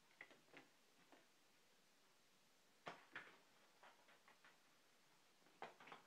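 Faint taps and rustles in three short bunches: a cat pawing at a magazine and paper plate held against a fridge door.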